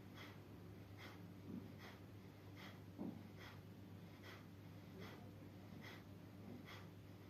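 Faint rhythmic breathing, a short hissy puff a little more than once a second, over a low steady hum, with a soft low thump about three seconds in.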